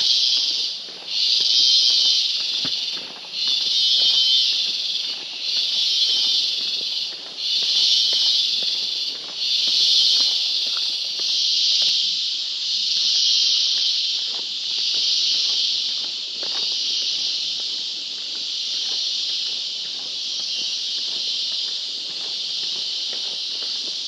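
Loud chorus of rainforest insects, a high buzzing drone that swells and fades about every two seconds, the pulses blurring into a steadier drone in the second half. Faint footsteps on the trail underneath.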